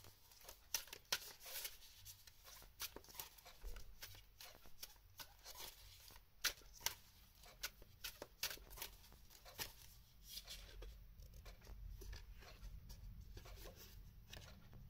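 Deck of oracle cards being shuffled by hand: faint, irregular soft clicks and slides of card against card, growing sparser near the end.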